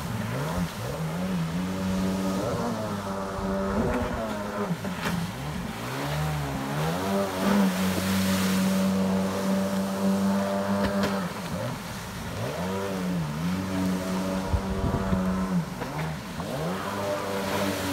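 1997 Sea-Doo XP personal watercraft's two-stroke engine revving hard, its pitch dipping and climbing back several times as it is thrown through tight turns, with the hiss of spray over it.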